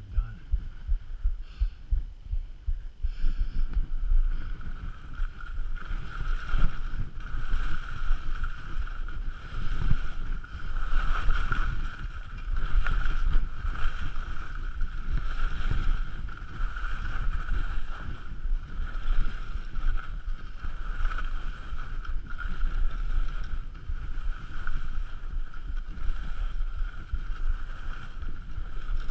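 Wind buffeting a helmet-mounted camera's microphone while skiing downhill, with skis hissing and scraping over snow. The rush fills in a few seconds in as the skier gets moving.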